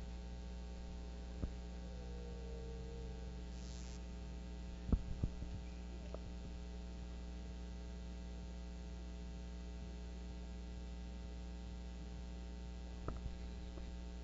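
Steady electrical mains hum on the sound system's microphone line, with a few soft knocks: one about a second and a half in, a cluster about five seconds in, and a few more near the end.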